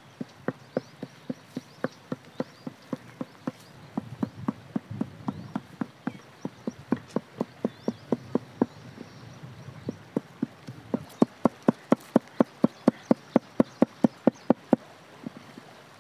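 Heavy cleaver chopping chicken into keema on a wooden log: sharp knocks of the blade into the wood, a few a second, turning into a fast, even run of louder strikes from about eleven seconds in.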